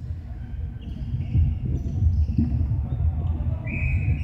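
Irregular dull thuds of players' feet and the ball on a wooden sports-hall floor, with a short high-pitched squeak or call near the end.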